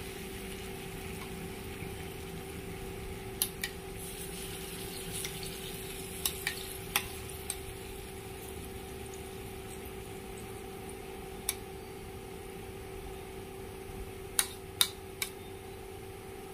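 Clams in soy-sauce dressing sizzling steadily on a hot grill pan, with a steady hum underneath. A handful of sharp clicks, spoon or shell against the pan, a pair at a time near the middle and three close together near the end.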